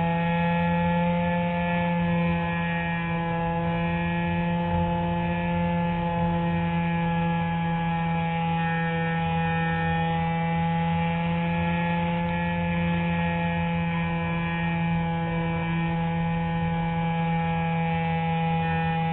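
Electric motor and propeller of an RC motor glider running steadily: a constant hum with a stack of higher tones that waver slightly in pitch, heard from a camera mounted on the plane's fuselage.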